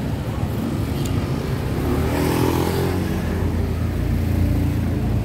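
Street traffic: engines running steadily, with a vehicle passing close that swells up and fades away about two seconds in.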